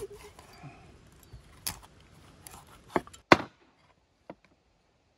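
Meat cleaver chopping raw rabbit into pieces on a wooden cutting board: a few sharp chops, the loudest two close together about three seconds in.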